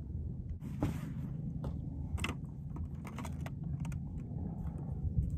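Wind buffeting the microphone as a steady low rumble, with a few light clicks and brief rustles of handling about a second in and again between two and three and a half seconds.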